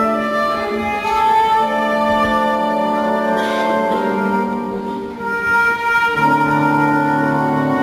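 Classical orchestral music with long held string notes, accompanying a ballet duet; a lower part comes in about six seconds in.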